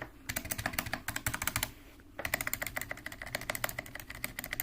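Mechanical keyboard spacebar pressed rapidly over and over, a fast run of clacks with a short pause about two seconds in. Its stabilizer wire has just had one thin layer of dielectric grease, so the rattle is reduced but not all gone.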